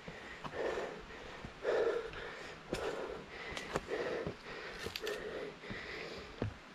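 A man's heavy breathing from exertion after a steep uphill climb, about eight breaths in quick, even succession, with a few sharp clicks between them.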